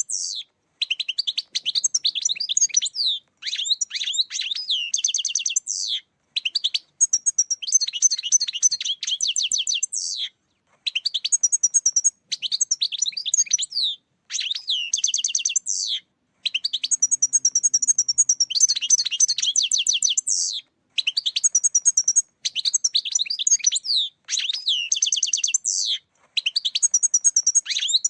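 European goldfinch singing: rapid, tinkling twittering phrases of a few seconds each, separated by brief pauses.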